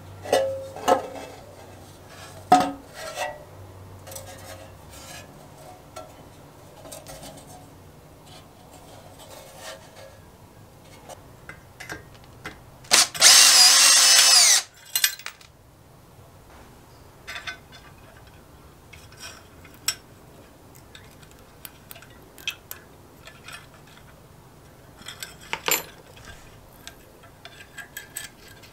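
Metal clinks and knocks as steel lawnmower engine parts are handled and taken off. About 13 seconds in, a power driver with a socket whirs for about a second and a half, spinning out a bolt.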